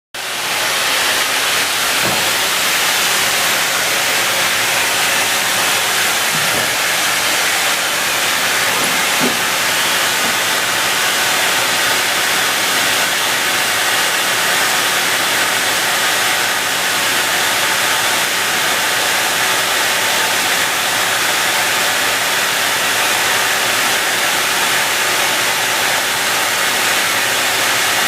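Steady, loud hiss of industrial machinery running, with faint steady hum tones beneath. A few faint knocks come in the first ten seconds.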